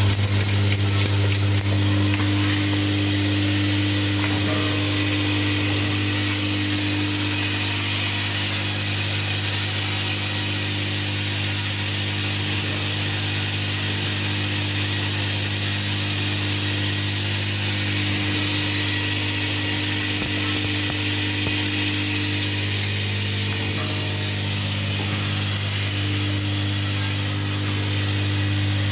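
Vertical bagging machine for counting and packing piece goods running steadily: a constant motor hum with steady higher tones and a hiss on top.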